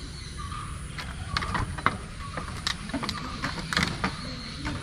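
Irregular knocks and clatter from a man in a wooden canoe working a fish trap over the side, over a steady low rumble. The knocks start about a second in and come unevenly, with a loud one just before the two-second mark and a cluster near the end.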